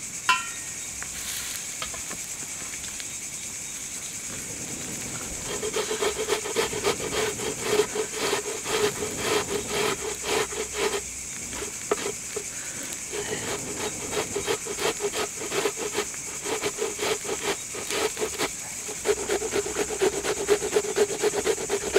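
Cucumber being grated on a hand grater into curd for raita: quick rasping strokes, about three or four a second, in three runs with short pauses. Crickets chirp steadily behind.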